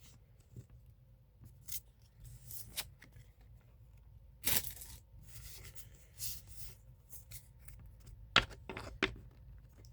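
A foil trading-card booster pack being torn open and handled: short, scattered rips and crinkles, one longer rip about halfway through, and two sharp snaps near the end.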